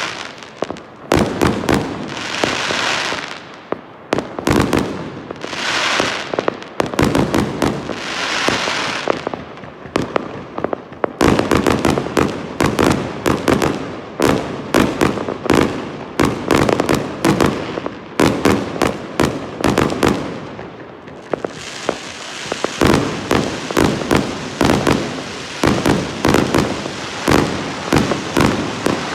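Fireworks going off in quick succession: sharp bangs throughout, with crackling, hissing bursts between them in the first third, then a dense, rapid barrage of bangs for the rest.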